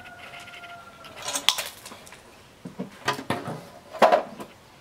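Sheet-metal TV bracket being handled and set down: several metallic clinks and knocks, the loudest near the end.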